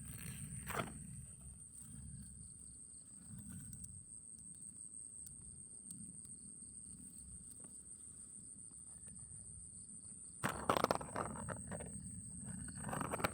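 Insects trilling steadily in one continuous high tone, over a low rumble. Louder bursts of rustling come about a second in and again near the end.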